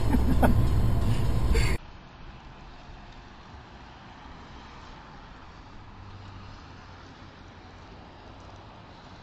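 Loud in-car rumble from a dashcam that cuts off abruptly about two seconds in. It gives way to a quiet, steady hum of engine and road noise inside a moving car.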